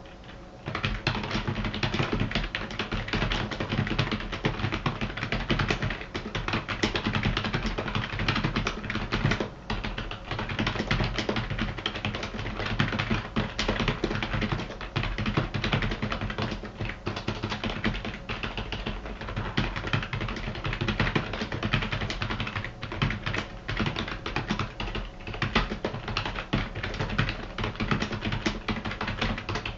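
Rapid, continuous typing on a Qsenn GP-K8000U mechanical keyboard, keys clacking in quick runs with a short pause about nine seconds in.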